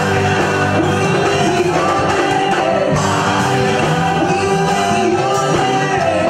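Live gospel praise and worship music: several singers singing together into microphones over a live band.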